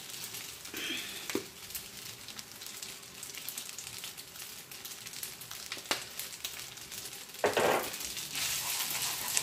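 Spaghetti sizzling in a hot nonstick pan, a steady hiss with scattered small crackles. Near the end a louder scrape as a wooden spoon starts stirring the pasta in the pan.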